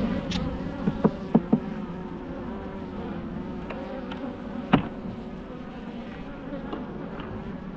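Honeybees buzzing steadily around an open hive of an aggressive colony. A few sharp clicks come about a second in, and a louder single knock comes near five seconds.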